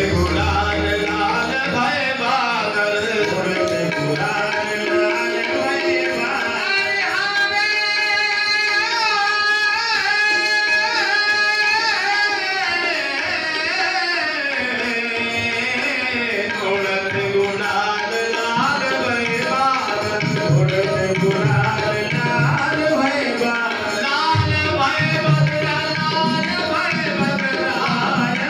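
Indian devotional song: a singer's voice winding through melodic runs over hand-drum accompaniment.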